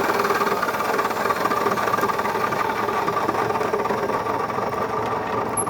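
Chop saw running steadily while cutting up a toy, a continuous motor whine with blade noise.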